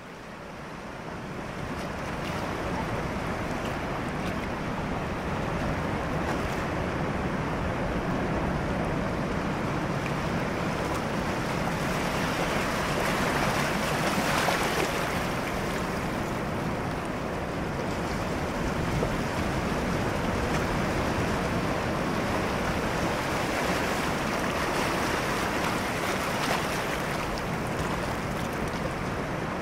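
Small waves washing in shallow surf, with wind. A steady wash that fades in over the first couple of seconds and swells a little about halfway through and again near the end.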